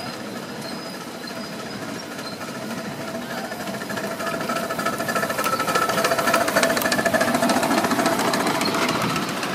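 A miniature railway locomotive hauling its passenger cars runs closer, with a rapid mechanical clatter and many clicks from the wheels and running gear. It grows louder about halfway through as it nears.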